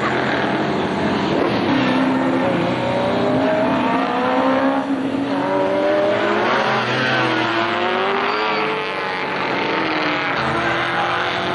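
Several 1960s saloon racing cars going past at speed in turn, their engines revving hard, with several engine notes overlapping and rising and falling in pitch as the cars pass.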